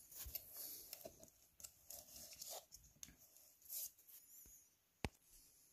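Faint handling noises from an open loudspeaker cabinet: scattered rustles of its fibre stuffing and wiring, light ticks, and one sharp click about five seconds in.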